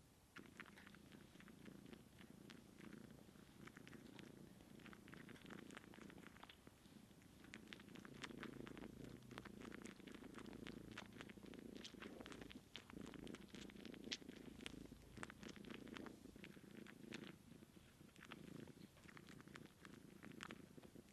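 Faint, steady purring from Bengal cats, overlaid with many quick, irregular clicks from a kitten dry-suckling at a nursing cat that has no milk.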